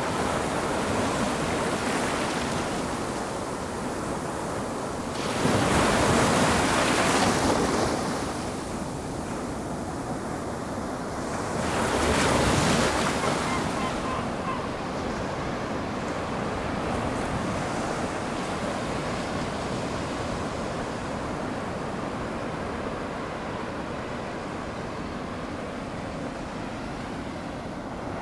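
Ocean surf washing on a shore: a steady rush of water, with two louder breaking waves, about five seconds in and again about twelve seconds in.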